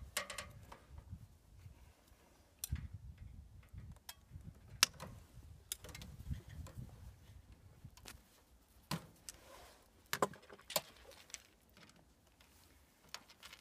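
Scattered sharp clicks and light metallic clinks of hand tools and stiff wire handled at a heat pump outdoor unit's terminal block: wire strippers, then a screwdriver working the terminal screws. The loudest clicks come about five, nine, ten and eleven seconds in.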